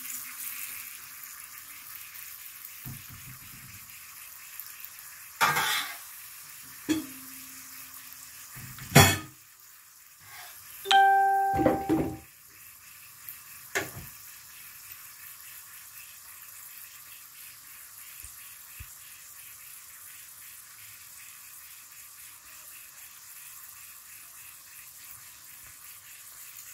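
Curry powder, garlic and hot pepper frying in oil in a metal pot: a steady faint sizzle, the Jamaican step of 'burning' the curry before the chicken goes in. A few knocks of the stirring spoon against the pot break in, with a short ringing metallic tone about eleven seconds in.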